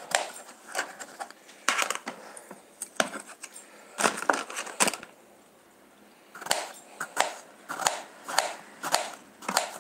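Kitchen knife slicing through raw courgette onto a cutting board: a run of crisp cuts at about two a second, with a short pause about halfway through.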